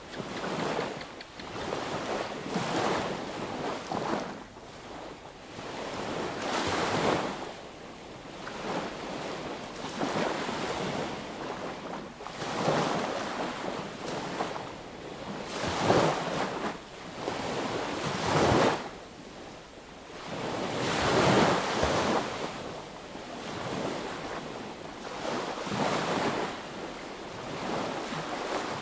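Small sea waves breaking and washing up the beach, the surf rising and falling in surges every few seconds, with some louder breaks.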